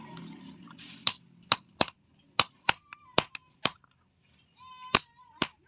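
Hammer striking steel on an anvil: nine sharp, ringing blows in an uneven rhythm, starting about a second in, with a pause before the last two.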